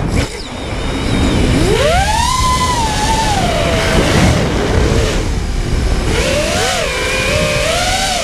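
Racing quadcopter's brushless motors (Armattan Titan 2306, 2450 kV) with 5-inch props whining, the pitch climbing and falling with the throttle, then settling to a lower, wavering whine in the last couple of seconds. A low rumble of prop wash and wind on the onboard microphone runs underneath.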